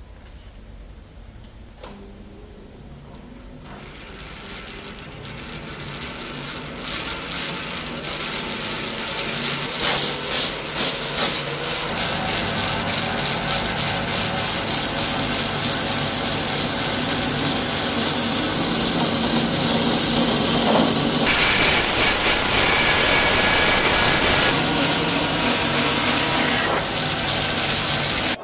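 A woodworking power tool running steadily with a loud, high-pitched whine and noise. It grows louder over the first ten seconds or so, then stays level until it cuts off abruptly.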